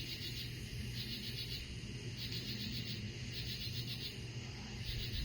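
Night insects chirping in short pulsed trills, a bit under a second apart, over a steady low hum.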